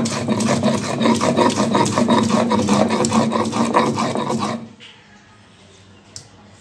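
Stone roller being rubbed fast back and forth over a flat grinding stone (shil-nora) to grind coriander leaves into a wet paste: a rapid, evenly repeating stone-on-stone rasping scrape. It stops suddenly about four and a half seconds in.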